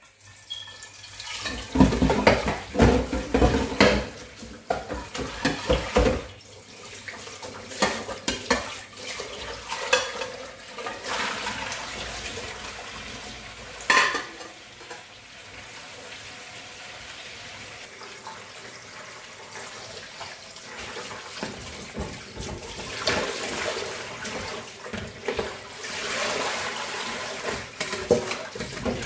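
Stainless steel pots and lids clattering and clanking in a kitchen sink, then a tap running water into a pot, with a few more metal clanks over the flowing water.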